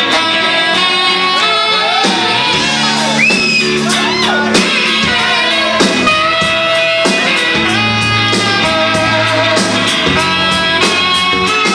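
Live band playing a pop-soul song in a hall: electric guitar over bass and drums keeping a steady beat, with a melody line that slides up and down in pitch over the top.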